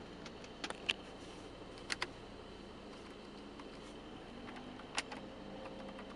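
A few sharp clicks from the car's climate-control and heated-seat knobs being pressed and turned: two quick pairs about one and two seconds in, then a single click near the five-second mark, over a faint steady cabin hum.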